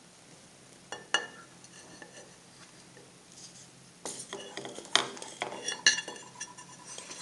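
Metal clinks and knocks as a cast aluminium starter motor end case is handled and turned over: two sharp knocks about a second in, then a run of clattering from about four seconds with two louder ringing clinks near five and six seconds.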